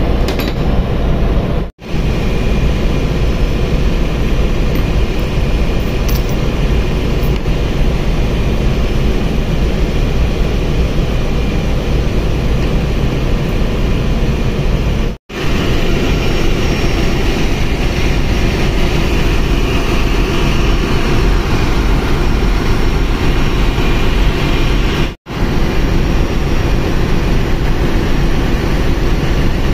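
Steady, loud machinery drone of a ship's engine room, with no clear rhythm. It breaks off for an instant three times at splices in the sound.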